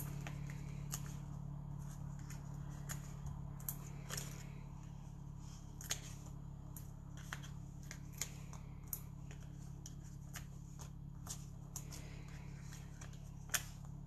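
Small scattered clicks and crinkles of paper and an adhesive backing sheet as foam dimensional dots are peeled off and pressed onto a die-cut paper piece, over a steady low hum.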